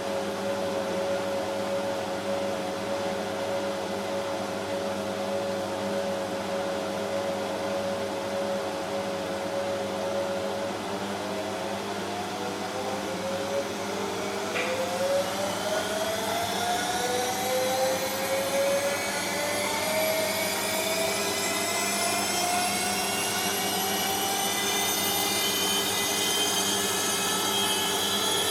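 Bosch MAXX 6 washing machine's motor and drum whining at a steady pitch during a spin, then from about ten seconds in the whine rises steadily in pitch as the drum speeds up.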